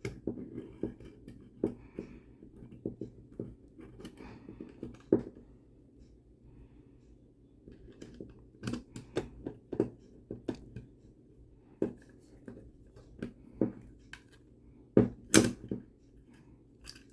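Small metal parts of a Star Model S .380 pistol clicking and tapping as they are handled and fitted during reassembly, working the spring cap and takedown lock into place. A couple of sharper knocks come about fifteen seconds in.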